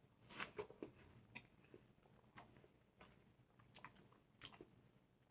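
Faint chewing of a mouthful of watermelon, heard as scattered soft clicks at irregular intervals.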